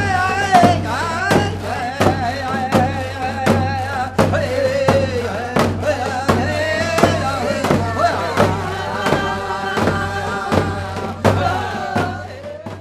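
Background music with a steady drumbeat and a melodic lead line, fading out near the end.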